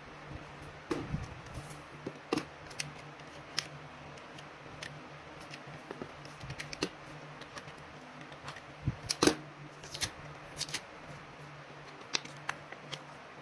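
Hands handling photocards, clear plastic sleeves and a cardboard backing on a desk: scattered light taps, clicks and plastic crinkles, with a loudest cluster about nine seconds in. A faint steady hum runs underneath.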